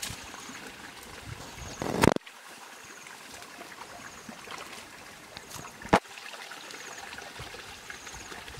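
Shallow stream water trickling and running over rocks. Two brief, loud, sharp sounds break through, about two seconds in and about six seconds in.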